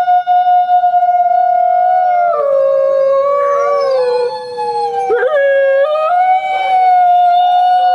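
Greenland wolf (a gray wolf subspecies) howling. One long steady howl lasts about two seconds, then the howl drops in pitch and a second, lower tone sounds alongside it. Around five seconds in the pitch bends and jumps, and the howl climbs back to a steady high note near the end.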